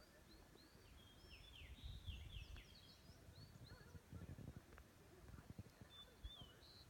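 Faint chorus of many birds giving short, high, slurred calls that overlap, over a low rumbling noise that swells twice.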